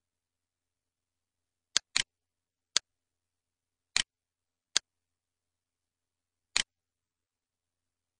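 Computer mouse clicking: six sharp, isolated clicks at uneven intervals, two in quick succession about two seconds in, with dead silence between them.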